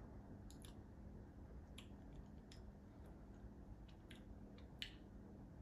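Near silence: quiet room tone with a faint steady hum, broken by a few soft mouth clicks and lip smacks while someone tastes hot sauce.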